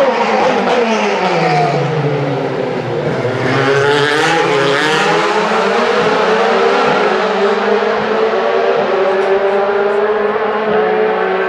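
DTM race cars' V8 engines passing: the engine note drops in pitch over the first two seconds, climbs again about three to five seconds in as a car accelerates, then holds a fairly steady drone.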